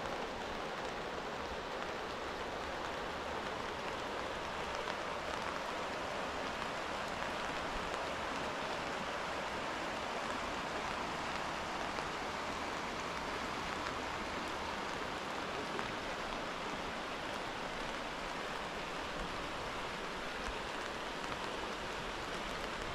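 Steady rush of the Azusa River running over its gravel bed, mixed with falling rain: an even, unbroken hiss of water.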